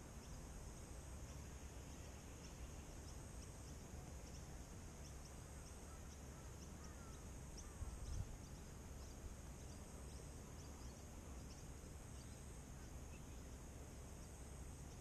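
Faint outdoor ambience: a steady high-pitched chirring with many short ticks and a brief tone repeating about every second and a half, over a low rumble. There is a soft bump about eight seconds in.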